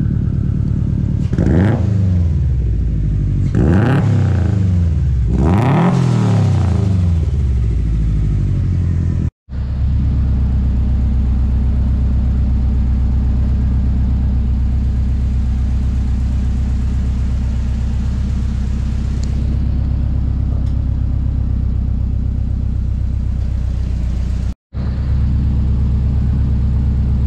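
Subaru's turbocharged flat-four engine blipped up three times, about two seconds apart, then settling into a steady idle.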